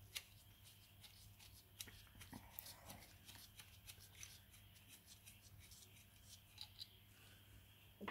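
Near silence: faint scattered small clicks and rubbing from gloved hands handling a small engine's carburetor, over a low steady hum.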